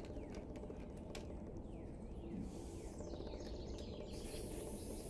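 Aerosol can of Slip Plate dry-film lubricant hissing as it is sprayed onto a sawmill rail: a short burst about halfway through, then a longer spray starting near the end. Birds chirp throughout.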